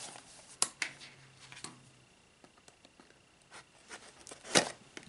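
Small cardboard box being handled and cut open with scissors: scattered light taps and clicks, then a louder sharp crunch of the blade in the cardboard about four and a half seconds in.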